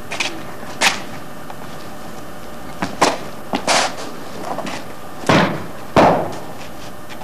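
The footwork and clothing of a Xingyiquan practitioner: several short, sharp stamps and scuffs of cloth shoes on concrete, with swishes of loose cotton clothing. The loudest two come about five and six seconds in.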